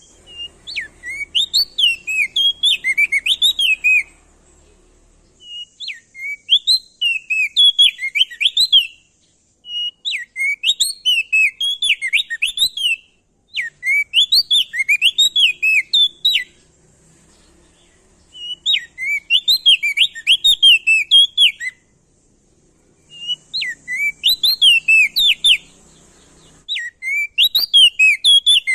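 A prenjak daun songbird singing loudly in about six fast, chattering phrases of quick up-and-down chirps, each around three seconds long with short pauses between. A faint high hiss fills the pauses.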